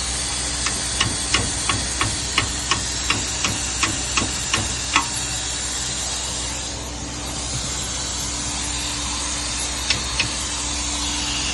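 A steady machine hum and hiss. About a second in comes a run of about a dozen sharp, evenly spaced taps, roughly three a second, and two more taps come near the end.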